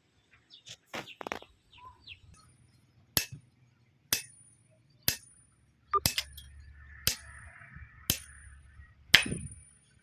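Hammer blows on iron bar, about one sharp metallic strike a second, each leaving a brief high ring. A few lighter clanks come earlier.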